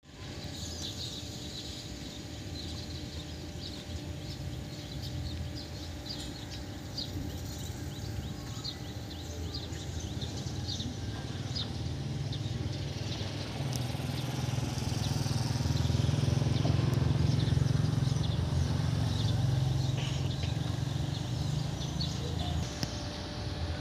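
Outdoor ambience: birds chirping over a low rumble that swells to its loudest around two-thirds of the way through, then eases off.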